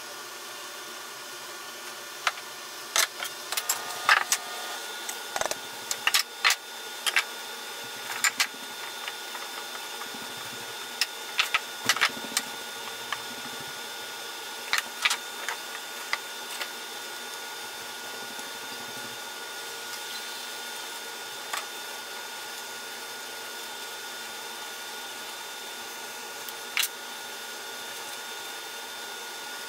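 Sharp knocks and clicks of pine boards being handled and fitted on a cabinet box, most of them in the first half and a couple later, over a steady mechanical hum.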